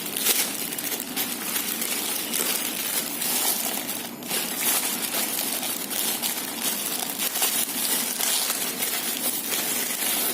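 Packaging being unwrapped by hand: continuous crinkling and rustling with many small crackles.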